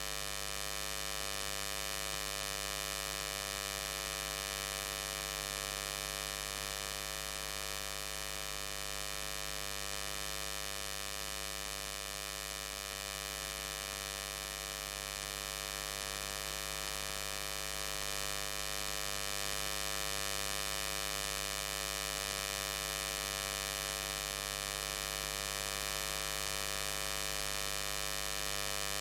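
Steady electrical hum and buzz, rich in overtones and unchanging: electrical noise from inverter-powered lighting.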